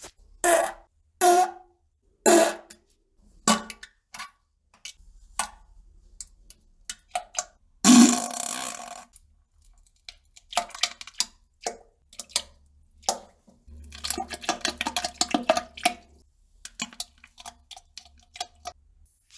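A string of short farts on the toilet, some with a bending pitch. The longest and loudest comes about eight seconds in, followed about six seconds in by a fast run of crackling, sputtering pops.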